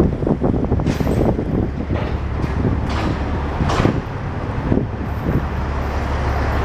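An engine running steadily with a low rumble, with scattered short knocks and clicks over it.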